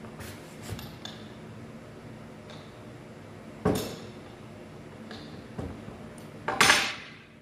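Knocks and clatter of a wooden workpiece and a clamp being handled and set on a workbench: a sharp knock about three and a half seconds in and a louder, longer clatter near the end. The trimmer is not running.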